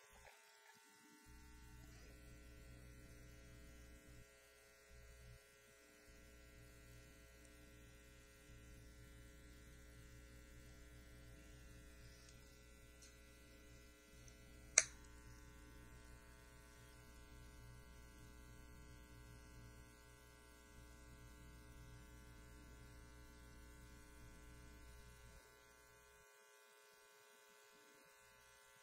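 Near silence: a faint, low, steady hum that drops out briefly a few times, with a single sharp click about halfway through.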